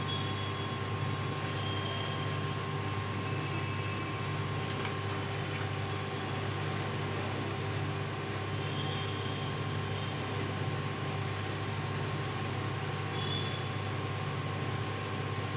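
A steady mechanical hum with a few constant tones, unchanging in level, with a few faint short high chirps here and there.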